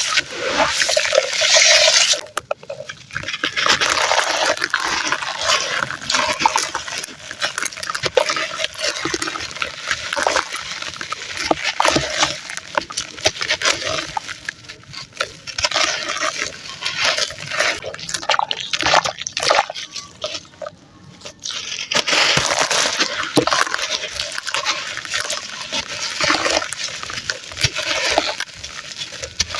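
Red sand crumbling into foamy water and being squished into a wet paste: irregular wet squelching and gritty crackling, pausing briefly twice.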